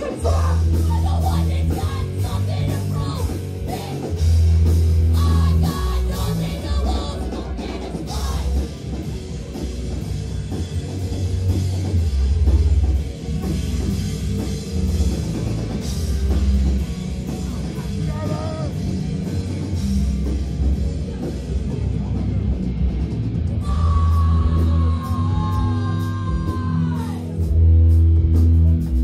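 Heavy rock band playing live: distorted electric guitar, heavy bass and drum kit, with a vocalist singing over it.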